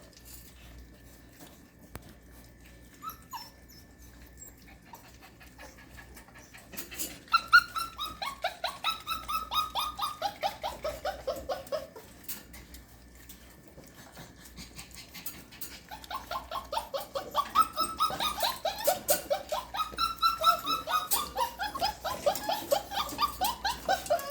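Puppy whining in fast strings of short, high cries that slide down in pitch. The first run starts about seven seconds in and lasts about five seconds; a second, louder run starts about sixteen seconds in and goes on to the end.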